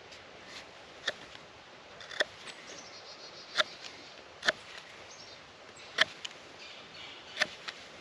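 Knife carving hard persimmon wood, tapering the end of a baton: about six short, sharp scraping strokes at uneven intervals.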